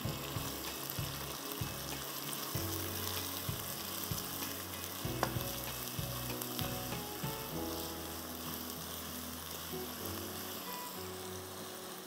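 Chopped onions sizzling as they fry in hot oil in a non-stick wok, stirred with a spatula, which clicks against the pan now and then.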